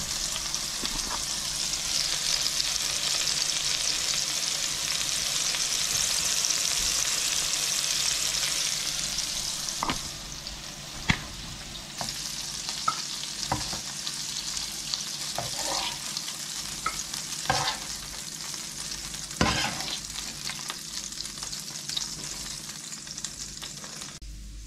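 Thai fish cakes sizzling as they shallow-fry in a non-stick frying pan. The sizzle eases after about ten seconds, and from then on light knocks and clicks come as the cakes are handled in the pan.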